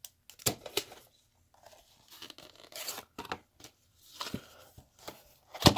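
Packaging being handled and torn open by hand: scattered clicks and short tearing, rustling bursts, with a sharp knock near the end.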